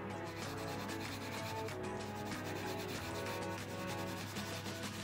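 Faber-Castell Albrecht Dürer watercolour pencil scratching across paper in a rapid run of short back-and-forth strokes, pressed fairly hard to lay down plenty of pigment.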